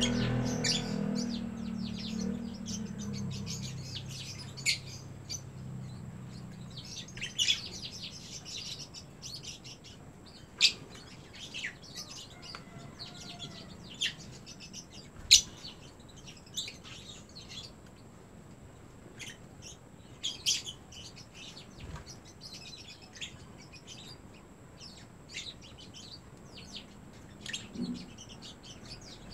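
Pet African lovebirds chirping: short, sharp, high calls at irregular intervals. A low hum fades away over the first few seconds.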